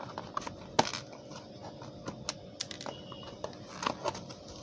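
Small cardboard phone box and its packing being handled: a string of irregular light clicks and taps, with one sharper knock about a second in.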